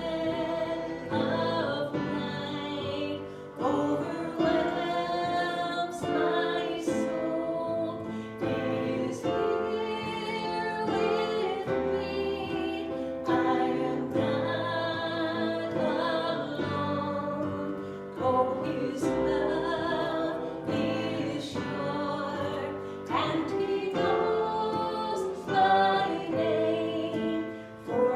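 Worship music: voices singing a slow hymn together, choir-like, with instrumental accompaniment.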